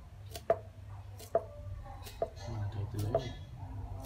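Kitchen knife working a small fish on a wooden chopping block: a sharp knock of the blade on the wood about once a second, five times.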